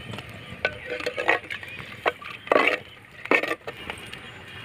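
Cooking sounds at a clay curry pot: a few short knocks and scrapes, the loudest about two and a half seconds in, as spice powders fry in oil and water is added to start the fish curry base.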